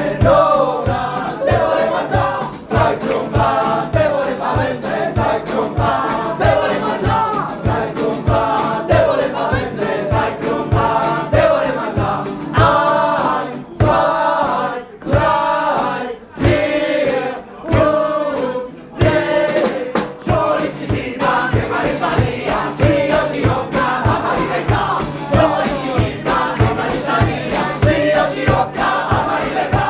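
A small acoustic band playing live, with guitars, saxophone and snare drum, while many voices sing loudly together over a steady drum beat. The loudness dips briefly a few times around the middle.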